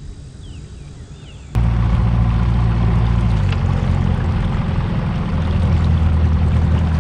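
Bass boat outboard motor running at low speed, a loud steady low hum that starts abruptly about a second and a half in and steps down in pitch twice as it slows.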